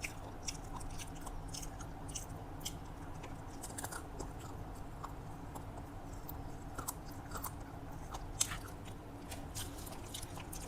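Close-up mouth sounds of a person chewing a meal of rice and fried vegetables: many small wet clicks and smacks at an uneven pace, over a steady low hum.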